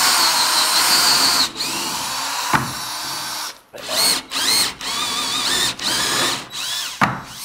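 Power drill boring into wall tile: it runs steadily for about three and a half seconds, then in a string of short trigger bursts with the motor whine rising and falling.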